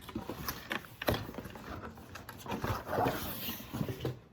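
A shipping package being handled and opened: cardboard and paper rustling and scraping, with a run of small knocks and clicks.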